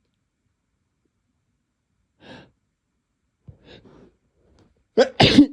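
A person's sneeze building up: silent for about two seconds, then a faint breath and a few short catching breaths, and near the end a loud, sharp gasp-and-sneeze burst.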